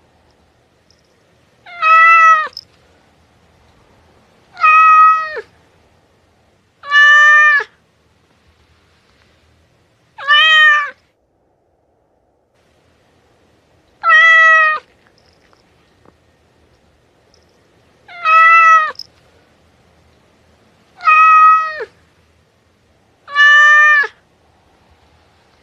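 Domestic cat meowing: eight short meows, each under a second long, spaced two to four seconds apart with quiet between them.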